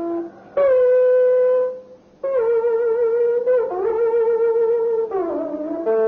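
Vietnamese đàn bầu (monochord) playing a slow solo phrase of long held notes with short gaps between them. The notes waver with vibrato and slide in pitch, one bending down near the end of the longest note.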